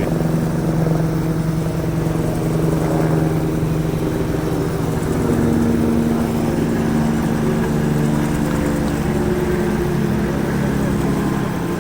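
Vehicle engine running steadily, with small shifts in pitch.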